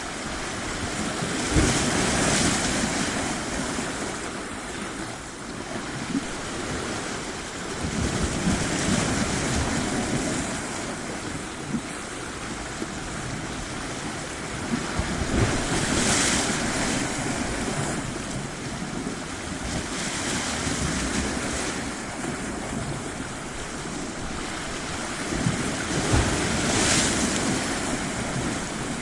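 Sea waves breaking on a shore and washing back, swelling up every five to seven seconds.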